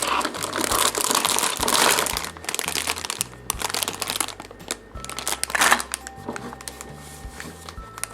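Packaging crinkling and rustling as a toy set is unboxed, heaviest over the first two and a half seconds and again briefly near six seconds.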